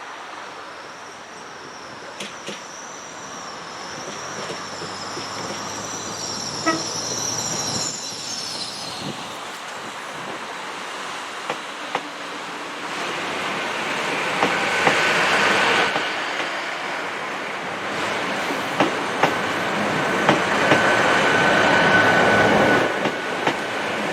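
A train moving through the station. For the first several seconds its wheels squeal with a high, wavering pitch. The sound then grows louder, with wheels clicking over rail joints and a steady high whine.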